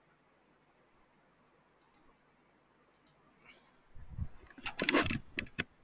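Near silence for about four seconds, then a quick run of sharp clicks and a few dull knocks near the end, from a computer mouse being clicked and handled on a desk.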